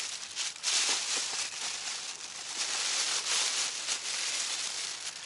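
A bag being handled and opened: continuous rustling and crinkling, with many small irregular crackles.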